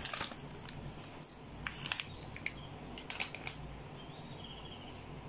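A spoon sprinkling spice powder onto chicken in a steel bowl: a few scattered light taps and clicks, the loudest a brief high ring about a second in.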